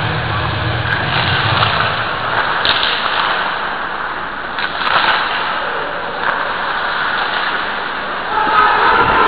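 Ice hockey play in an indoor rink: a steady hiss and scrape of skates on the ice with a few sharp clacks, and players' voices shouting near the end.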